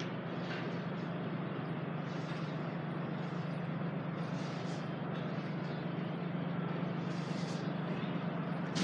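Steady low drone and hiss of vehicle traffic, with brief swells of hiss now and then.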